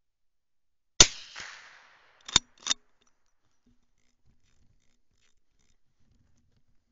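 A single rifle shot about a second in, a sharp crack whose report rolls away over about a second, followed by two short sharp mechanical clicks about a third of a second apart.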